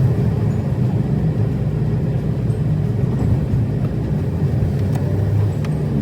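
A car running, a steady low rumble.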